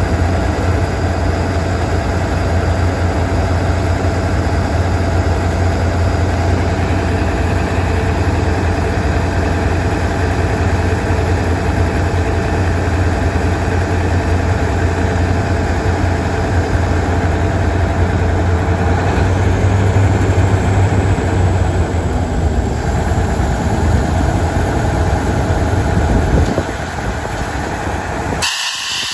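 Cummins QSX15 diesel engine of an Ingersoll Rand 1300WCU towable air compressor running steadily with a deep hum. Near the end the engine sound drops and a hiss of air starts as the compressor's discharge valve is opened.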